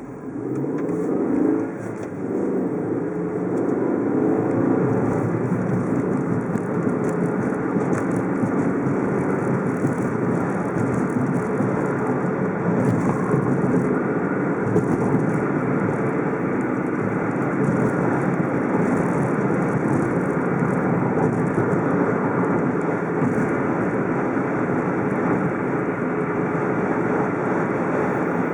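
Car driving, with steady engine and road noise that builds over the first few seconds as it picks up speed, then holds.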